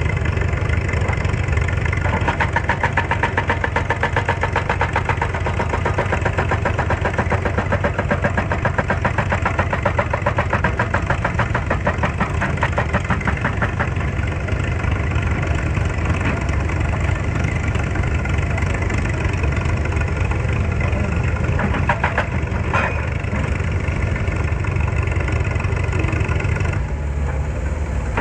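Excavator's diesel engine running steadily with a fast, even pulsing. A couple of sharp knocks come about three-quarters of the way through, and the engine note eases slightly near the end.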